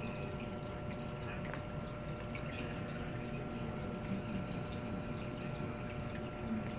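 Aquarium water trickling and dripping steadily, with a faint steady hum and occasional small drip clicks.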